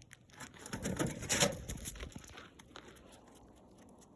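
Crinkling and rustling of a dog's advent-calendar toy and its packaging as she handles it. It is loudest from about one to two seconds in, then trails off into faint clicks and taps.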